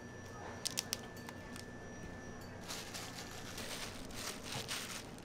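Three quick clicks, then about two seconds of crinkling rustle from wrapping being handled.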